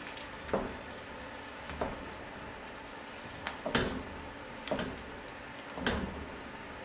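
Wooden spoon stirring thick soup in a large stainless steel pot, knocking against the pot's side about six times at irregular intervals.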